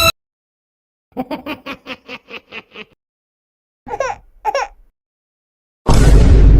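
A quick giggle of about nine rapid laughing pulses, followed by two short sliding vocal cries. Near the end a loud, noisy blast with a heavy low rumble sets in.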